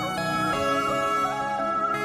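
Background music: a melody over sustained notes.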